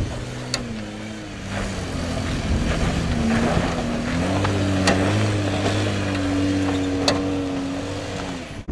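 Car driving with its engine note rising and falling, and three short sharp knocks: the front-end suspension clunk, which the owner suspects comes from the sway bar or shocks.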